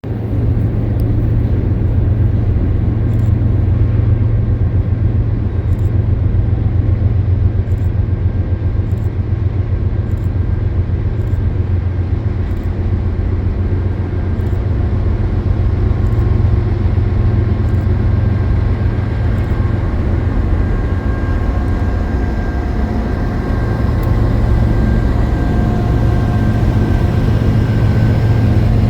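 Norfolk Southern diesel-hauled train rolling across a bridge: a steady, loud low rumble, with light regular clicks in the first two-thirds and a faint high whine in the second half.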